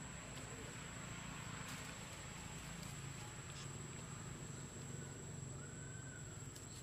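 Faint outdoor forest ambience: a steady high-pitched tone over a low hum, with a few faint clicks and a short, faint call about five seconds in.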